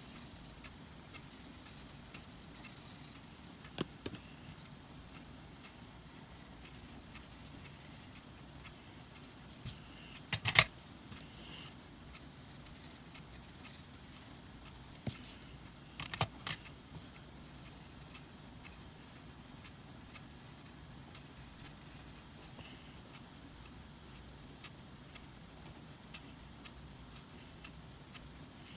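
Colored pencils clicking and clattering a few times, the loudest clatter about ten seconds in, over a faint steady hiss.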